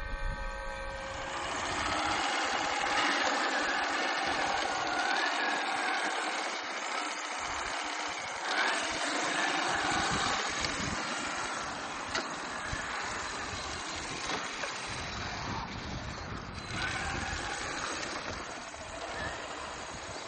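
Electric drivetrain of a 1:5 scale RC Fennek armoured car model running over rough ground: motor and gear noise that swells and falls with its speed, loudest in the first half.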